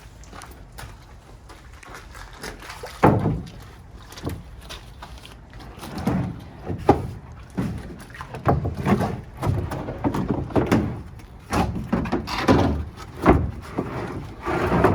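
Wooden drawers being fitted into a homemade plywood truck-bed toolbox: irregular wood-on-wood knocks and sliding scrapes, with a sharp thunk about three seconds in and another about seven seconds in.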